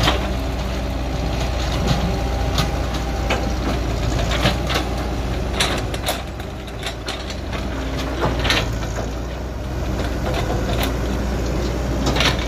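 Sumitomo hydraulic excavator's diesel engine running steadily as the bucket digs into dry field soil. Irregular sharp knocks and clanks come from the bucket and arm working.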